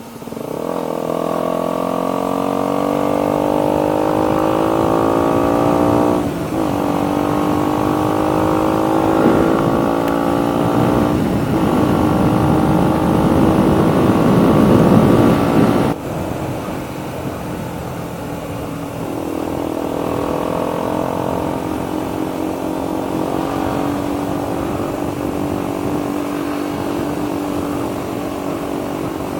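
A 2019 KTM Duke 125's single-cylinder four-stroke engine, fitted with a Radical Racing GP carbon full exhaust system, accelerating hard and climbing in pitch through the gears, with a short break at each of two upshifts. About halfway through the throttle is shut suddenly and the engine drops to a steady, lower cruising note.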